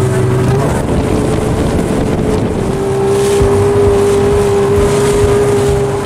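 Motorboat engine running at a steady speed with an even drone.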